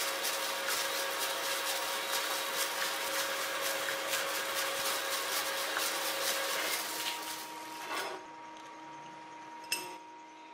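A motor-driven shop tool working metal: a steady whine under a dense rasping hiss. The hiss drops away about eight seconds in, and a single sharp click follows near the end.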